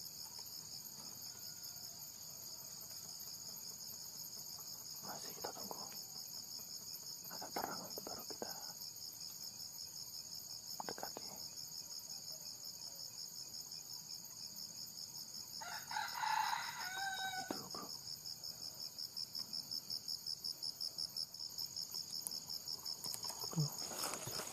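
A red junglefowl crows once, a short call about two-thirds of the way through, over a steady high chorus of insects. A few fainter brief sounds come earlier.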